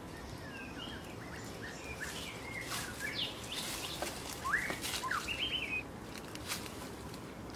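Birds chirping in a string of short calls that glide up and down, thickest in the middle seconds, over scattered rustles and crackles of steps through dry leaves and brush.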